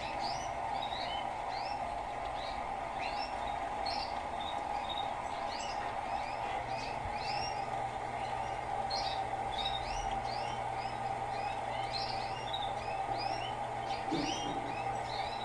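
Birds chirping in quick repeated calls throughout. Under them runs a steady hum of water filling an Electrolux LTE12 washing machine for its rinse.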